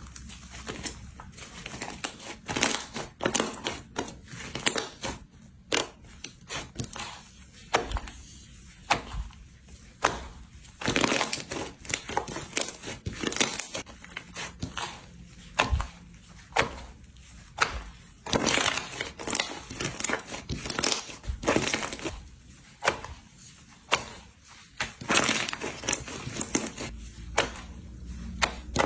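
Slime being pressed and squeezed by hand, giving irregular crunchy crackles and pops in quick clusters with short pauses between them.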